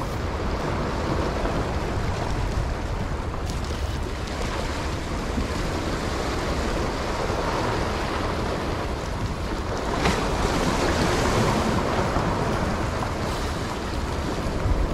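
Small waves washing over jetty rocks, with wind on the microphone; a louder wave surge comes about ten seconds in.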